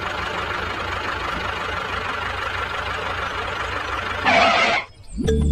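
A heavy engine running steadily with a low hum. A louder burst of hissing noise comes about four seconds in, and music starts just before the end.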